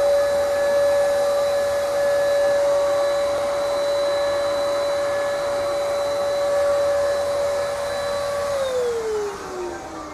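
Electric paint spray gun running as it sprays paint, a steady high motor whine with hiss. About eight and a half seconds in it is switched off and the whine falls in pitch as the motor spins down.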